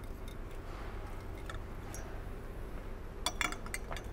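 Light metallic clicks and clinks as an Allison transmission on a transmission jack is worked up into place under a truck, with a short cluster of them a little past three seconds in, over a steady low hum.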